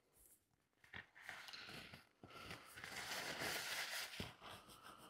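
Paper tissue rubbing and scrubbing across a leather sofa, an irregular dry rustle, as white leather filler is wiped off the surface. It starts about a second in and is loudest in the middle.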